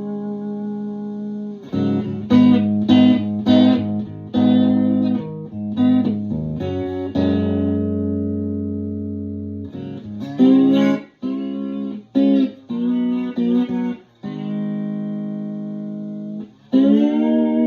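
Open-chamber Telecaster electric guitar playing arpeggios in the key of G: runs of picked notes alternate with held notes left to ring, and several notes slide up into pitch.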